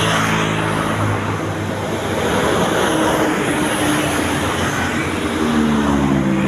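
Tour bus driving past, its engine and road noise loud and steady. Near the end a pitched sound with several tones comes in.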